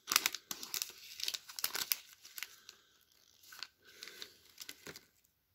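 Foil trading-card pack wrapper crinkling and tearing as it is pulled open by hand: a dense run of sharp crackles for the first two seconds or so, then sparser crinkles.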